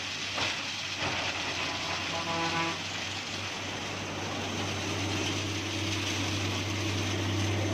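Three-phase electric coconut-husk shredder running, with coconuts being fed into its hopper and ground to coir: a steady mechanical grinding noise over a low hum, and the hum grows stronger over the second half.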